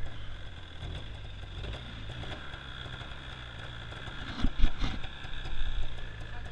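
Snowmobile engine idling steadily. A few knocks sound a little past the middle.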